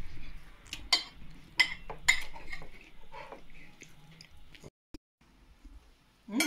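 Forks and spoons clinking and scraping on ceramic plates as people eat, with several sharp clinks in the first two seconds and softer ones after. The sound drops out briefly about five seconds in.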